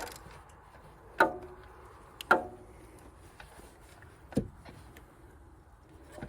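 Socket, extension and ratchet knocking against metal in an engine bay: three sharp metallic knocks about a second apart, the first two ringing briefly, with a few lighter clicks between them.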